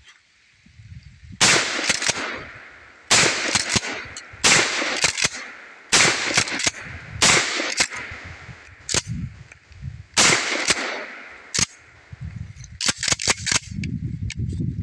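Mossberg Maverick 88 12-gauge pump-action shotgun fired six times at an uneven pace, each shot a loud crack with a long echoing tail, with the shorter clack of the fore-end being pumped between shots. Near the end comes a quick run of mechanical clicks.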